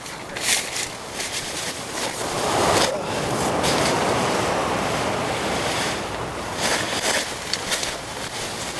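Surf on the beach: a continuous rush of waves that swells about two and a half to four seconds in, with wind. A few short rustles or knocks sound over it.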